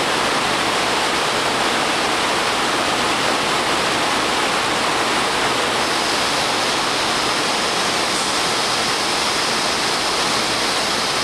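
Steady, loud rushing noise that does not change, with a faint high whine coming in about six seconds in.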